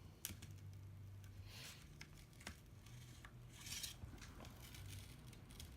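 Faint handling noise of hands and tools working inside an opened iPad mini: a sharp small click and a couple of brief scrapes, over a low steady hum.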